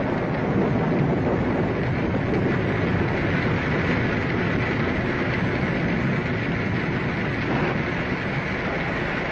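Radio-drama storm sound effect: steady, loud rushing of rain and wind.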